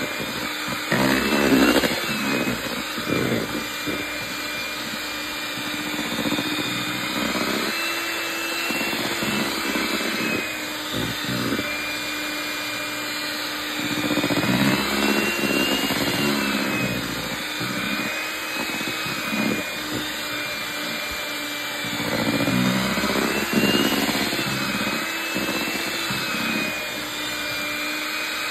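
Electric hand mixer running steadily, a motor whine that wavers slightly in pitch, its beaters churning thick mashed potatoes with irregular knocks against the bowl.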